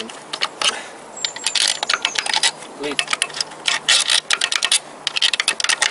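Ratchet wrench clicking in quick runs of sharp metallic ticks, turning an old bolt threaded into a crankshaft main bearing cap so the cap can be worked loose and lifted out.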